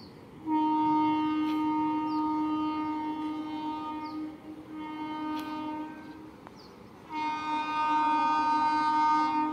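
Horn of an approaching Intercity Express locomotive sounding in three long blasts: the first about four seconds, the second shorter, the third starting about seven seconds in.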